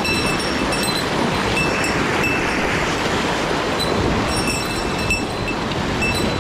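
Steady rush of a mountain stream flowing over rocks, with short high-pitched chirps repeating over it.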